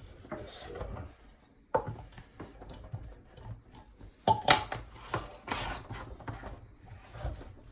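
The plastic drum of a Frankford Arsenal rotary tumbler is handled and its sealed lid is fitted and screwed on. Scattered clicks, knocks and plastic rubbing are heard, the loudest a few clicks about four and a half seconds in.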